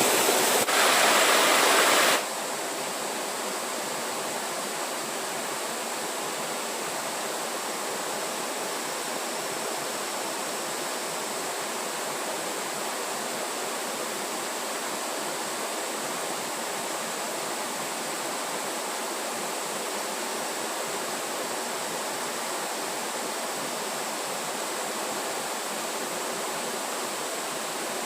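Steady rushing of flowing water, louder for the first two seconds and then dropping suddenly to a lower, even level, with a faint steady high-pitched whine over it.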